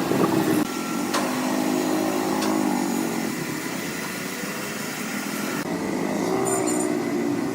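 Woodworking machinery running, a motor-driven cutter with a pitched hum that wavers up and down, the sound changing abruptly about half a second in and again near six seconds in.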